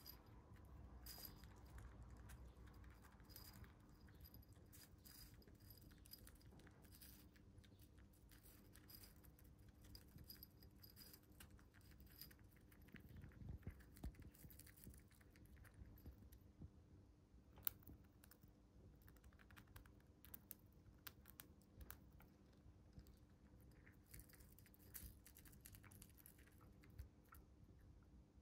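Faint, scattered clicks and rattling of seeds and shells against a small ceramic bowl as a pet Siberian chipmunk roots through its seed mix and eats, with one sharper click partway through.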